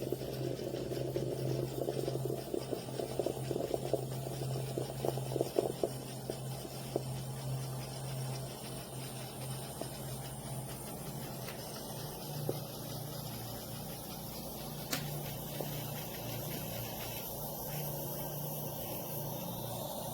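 Small 3.5-bar steam espresso machine running a test cycle with plain water: bubbling and sputtering over a steady low hum, the sputtering strongest in the first few seconds and then dying down.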